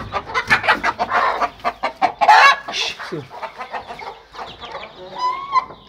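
Domestic chickens clucking, with a short burst of noise about two seconds in and a brief pitched call near the end.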